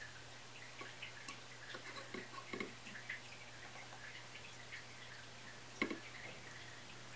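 Faint, scattered light clicks and taps of small parts and tools being handled on a soldering bench, with one sharper click about six seconds in, over a steady low hum.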